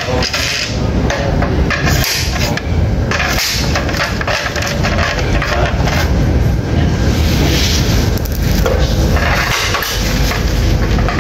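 Tools working on a UPS's plastic casing: knocks and scraping in several short bursts, over a steady low rumble.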